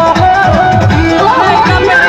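Loud music with repeated low drum beats under a wavering melody line.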